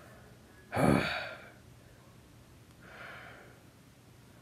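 A person's breathing: one sharp, loud breath or gasp about a second in, then a softer breath near three seconds.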